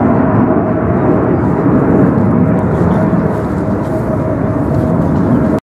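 Five F-15J Eagle fighter jets passing overhead in formation, their twin turbofan engines making a loud, steady rumble with a thin steady whine over it. The sound cuts off abruptly near the end.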